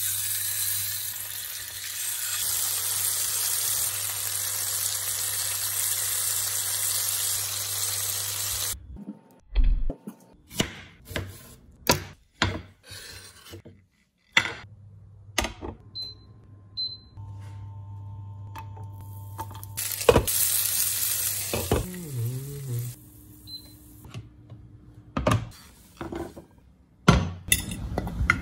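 Crucian carp sizzling as it fries in hot oil in a frying pan, a steady hiss that starts as the fish goes in and cuts off after about nine seconds. Then a run of separate knocks and clicks of kitchen utensils and dishes, with a second short burst of sizzling partway through.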